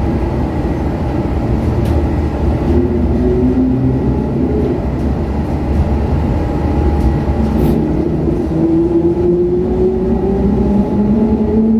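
DB class 420 S-Bahn electric multiple unit heard from inside the passenger car: a steady low running rumble with motor whine rising slowly in pitch as the train gathers speed.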